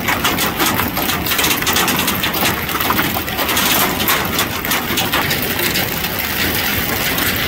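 Hailstones pelting down on parked pickup trucks, a dense, rapid clatter of countless small hits on sheet metal and glass.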